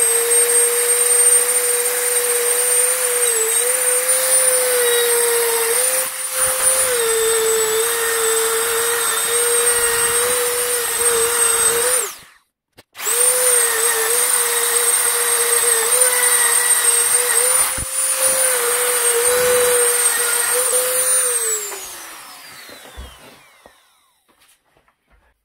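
Dremel rotary tool running at a steady high whine against the metal of an EGR valve, its pitch wavering slightly as the bit is pressed on. It breaks off briefly about halfway and starts again, then near the end is switched off and winds down with a falling whine.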